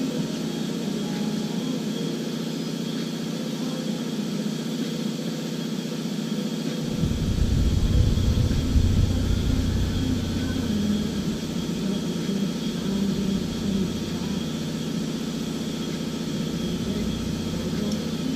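An engine running steadily. About seven seconds in, a deep rumble joins it and the sound grows louder for a few seconds before settling back.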